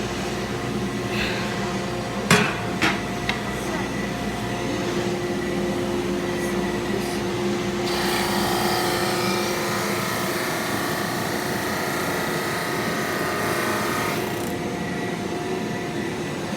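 Drum sander motor running steadily, with two sharp knocks a little over two seconds in. About halfway through, a loud rasping hiss joins it for some six seconds as the wooden board passes under the sanding drum, then stops.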